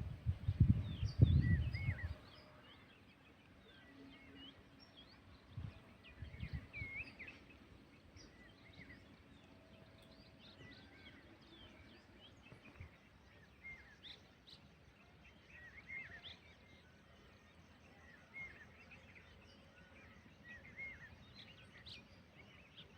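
Birds chirping: many short, quick chirps and calls scattered throughout over a faint steady background hiss. A loud low rumble fills the first two seconds, and a weaker one comes around six seconds in.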